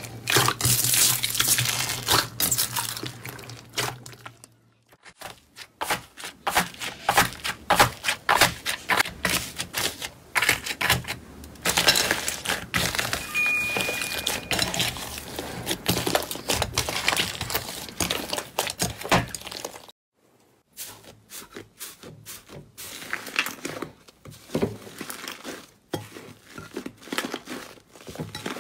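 Hands squeezing and kneading slime, making dense, irregular crackles, pops and squelches. The sound drops out briefly about five seconds in and again about twenty seconds in.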